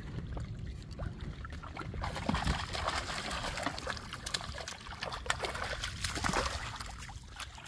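Water splashing and trickling, with many quick small splashes, busier from about two seconds in.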